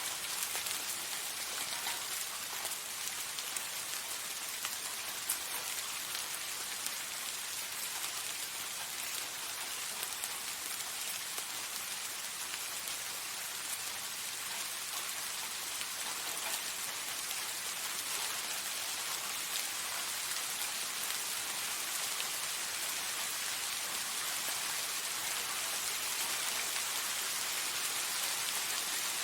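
Steady soft rain: a dense patter of raindrops falling on a surface, with no change in strength.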